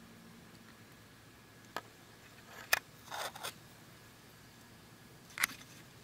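Handling noise on the camera setup: a light click about two seconds in, a louder click followed by a short scraping rustle around three seconds, and another sharp click near the end, over a faint steady hiss.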